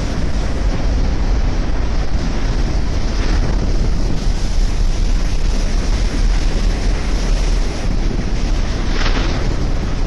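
Strong wind buffeting the microphone over the rush of breaking waves and churning foam along a container ship's hull in rough seas, with louder rushes of hiss about three seconds in and again near the end.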